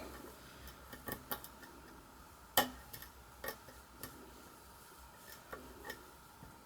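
Faint, scattered metallic clicks and ticks of a lock pick working the pins inside a pin-tumbler challenge lock, with the sharpest click about two and a half seconds in.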